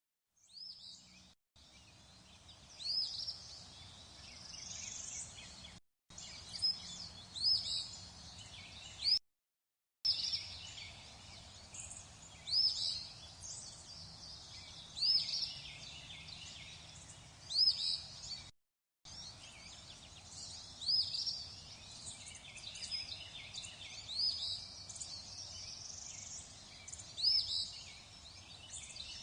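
Birds chirping in a chorus, one bird repeating a short, loud rising call every two or three seconds over many fainter chirps. The sound cuts out completely for brief moments three or four times.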